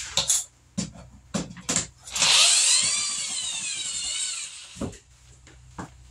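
Metal shower curtain rod being wrenched down by hand: a few knocks and rattles, then a squeal of metal scraping on metal for about two seconds, wavering in pitch, and a thump near the end.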